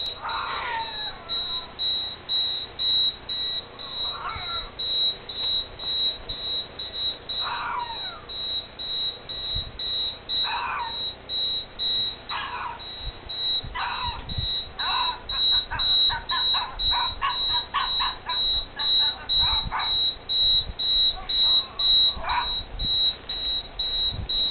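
Recorded puppy barking played through headphones: short yips, scattered at first and then coming in a quick run of yaps in the middle. A high beep pulses steadily about twice a second throughout.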